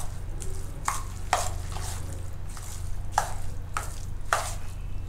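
Metal spoon stirring a thick grated-potato and flour batter in a stainless steel bowl, with several sharp, irregular clinks of the spoon against the bowl over a low steady hum.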